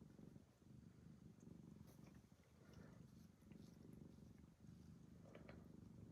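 Domestic cat purring quietly and steadily, with a few faint short noises near the middle and again near the end.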